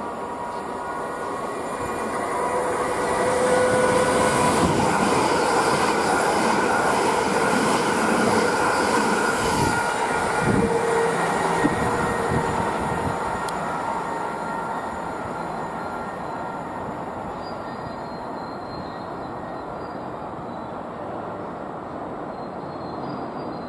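Electric multiple-unit train running through the station, its rumble growing louder over the first few seconds and fading away after about twelve seconds, with thin steady whining tones over the rail noise.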